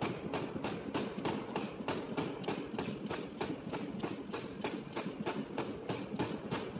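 Power forging hammer striking a red-hot steel ring in quick, even blows, about four to five a second, over the steady low rumble of the machine.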